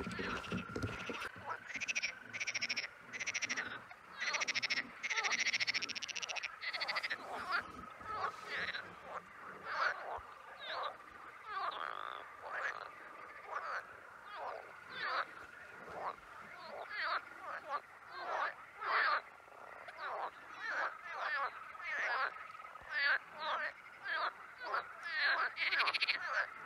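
A chorus of many frogs calling at once, short croaks repeating irregularly and overlapping one another, over a steady high tone.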